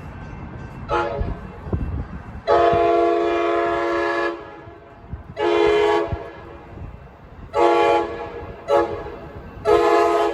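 Locomotive air horn (CDTX 6952) playing a hornshow, a rhythmic pattern of chord blasts: a short toot about a second in, a long blast of nearly two seconds, then four shorter blasts. Under the horn is the low rumble of the passing train.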